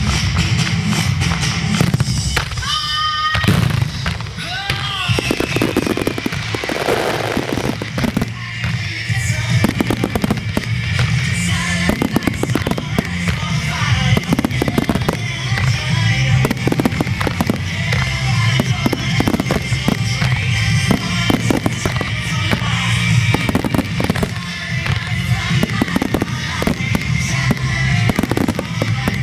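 Aerial fireworks bursting in quick succession, booms and crackles, with whistling shells a few seconds in, over a rock song with a steady bass playing with the display.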